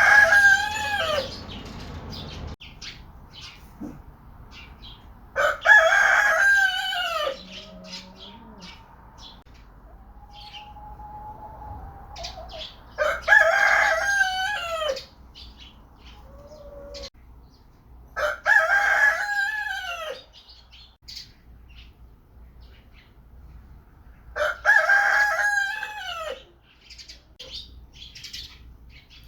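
Rooster crowing over and over, a long cock-a-doodle-doo about every five to six seconds, with faint short chirps between the crows.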